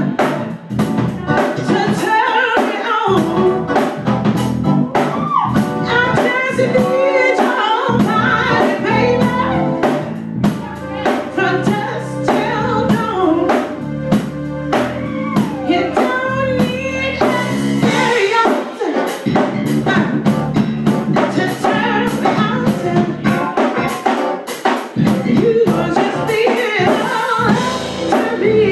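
Live band: a woman singing over keyboard and a drum kit keeping a steady beat.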